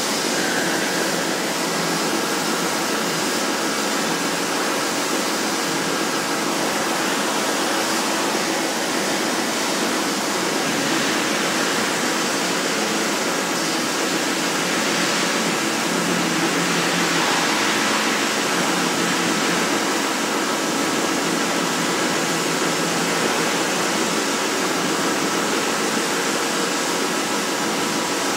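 CNC plasma cutter cutting steel plate: a steady, loud hiss from the torch, with faint steady tones running through it.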